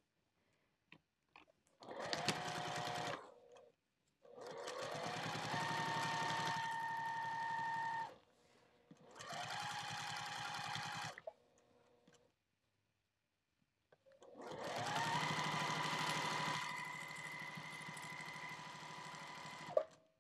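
Electric sewing machine stitching a seam in four separate runs, the motor's whine rising as it speeds up at the start of each run and then holding steady, with short pauses and a few light clicks between runs.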